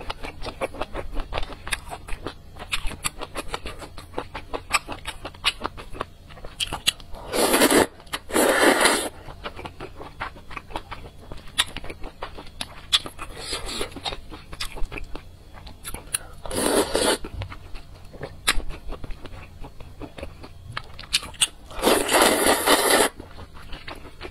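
Close-up eating of spicy soup noodles: soft chewing and wet mouth clicks throughout, broken by four loud slurps of noodles, two close together about a third of the way in, one just past the middle and the longest, about a second, near the end.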